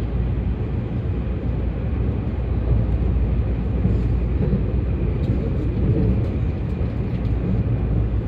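Steady running noise of an E257-series limited express train heard from inside the passenger car at speed: a constant low rumble of wheels on rail and the train running.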